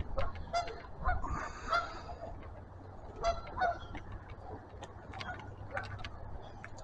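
Geese honking in short, scattered calls, with a cluster of calls about a second in and another about three seconds in.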